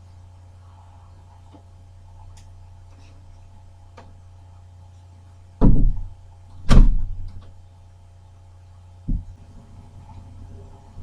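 Two loud thumps about a second apart just past the middle, then a softer thump near the end, over a steady low hum.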